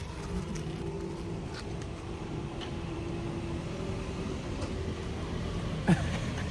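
Steady low rumble of a running vehicle engine, with a faint steady hum over the first few seconds. About six seconds in comes one short, sharp, falling squeak, the loudest sound in the stretch.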